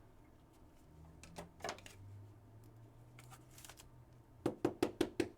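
Trading cards being handled by hand: faint rustling and light ticks, then a quick run of about six sharp taps near the end.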